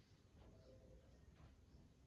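Near silence: faint background hiss with a few faint ticks.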